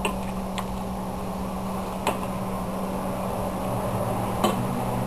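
Spatula stirring mixed vegetables in a large stainless steel pot, knocking lightly against the pot a few times, the loudest knock near the end, over a steady low hum.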